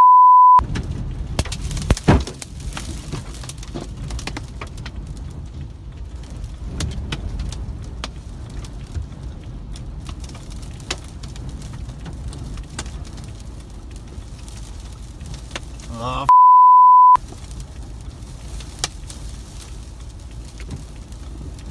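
Steady low rumble of tornado winds buffeting a car, heard from inside the cabin, with scattered ticks and knocks of debris hitting the car and one sharper knock about two seconds in. Two loud single-pitch censor bleeps cover swearing: one at the very start and one about sixteen seconds in, each under a second long.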